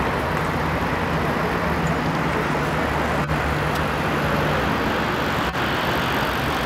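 Steady city traffic roar with a low hum, broken by two very brief dropouts in the sound, about three and five and a half seconds in.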